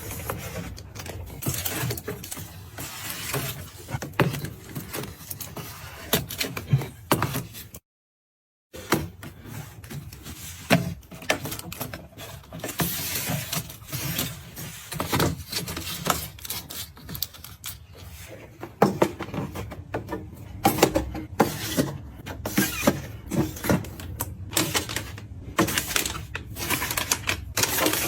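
Small items being handled and set down: a run of clicks, taps and rustles, broken by a second of dead silence about eight seconds in.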